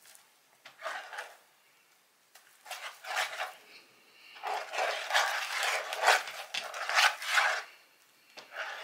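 Slime being mixed in a bowl: irregular rubbing and scraping strokes, busiest in a dense run through the middle few seconds.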